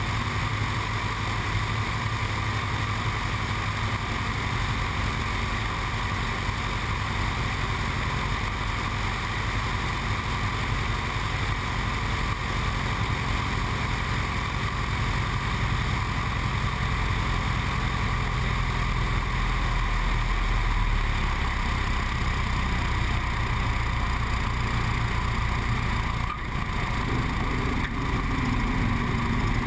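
A light high-wing aircraft's piston engine and propeller drone steadily under rushing air through the approach and landing roll. The sound dips briefly near the end.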